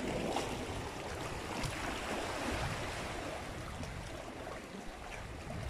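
Sea surf washing among coastal rocks: a steady rushing noise.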